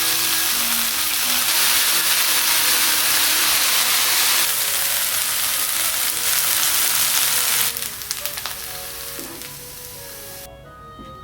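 Food sizzling in a hot frying pan, a loud steady hiss that drops off sharply about eight seconds in, leaving a softer sizzle and a few light clicks.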